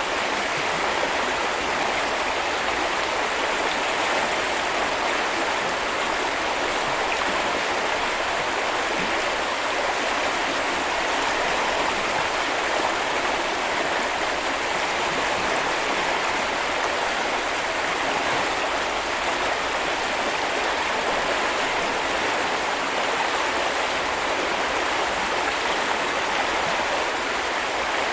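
Small river or brook flowing steadily over stones, an even rushing and babbling of water.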